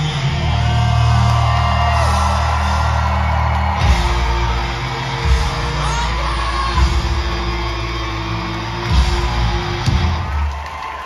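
Live rock band playing in a concert hall, heard from within the crowd: heavy bass and guitar with several hard drum hits, singing, and crowd yelling. The bass drops away near the end as the song winds down.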